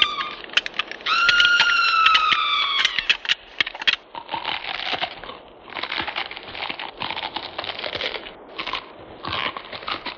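Monster sound effects for a giant crab attack: a shrill, slightly falling screech breaks off at the start and sounds again for about two seconds. From about three seconds in comes a long run of crunching and crackling with sharp cracks.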